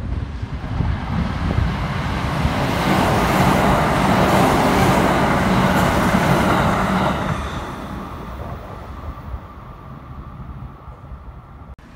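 A Kintetsu 2610 series + 1200 series express train passing through the station without stopping, wheels rumbling and rushing on the rails. The noise builds as it comes past, is loudest from about three to seven seconds in, then fades quickly as the train goes away.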